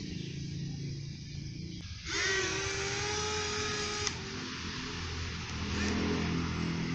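Small quadcopter motors on a homemade RC boat running, driving its propeller. About two seconds in the motor whine gets louder, holds for two seconds, then cuts off sharply, leaving a lower steady hum.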